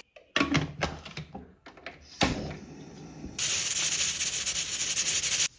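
A few knocks, then from about three and a half seconds in a loud steady hiss of steam from a pressure cooker's valve, cutting off sharply near the end.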